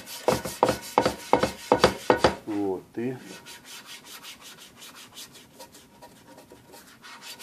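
Small stiff-bristled brush scrubbing a frying pan coated in foamy cleaning gel, rapid back-and-forth strokes loosening burnt-on cooking-oil residue. The strokes are loud for the first couple of seconds. After a brief spoken word they go on lighter and quicker.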